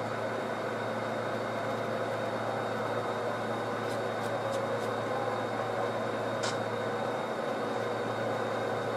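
HO scale model freight train moving slowly through a yard: a steady engine-like drone, with a few light clicks around the middle.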